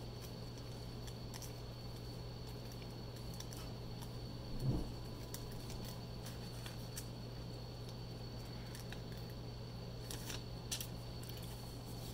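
Faint scattered clicks and taps of rigid plastic card holders being handled, over a steady low electrical hum and a faint high whine. One soft low thump about five seconds in.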